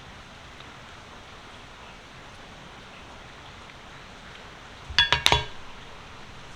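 AirPods Pro earbuds and charging case being handled: a quick run of about four sharp hard-plastic clicks and clinks about five seconds in, over a steady hiss.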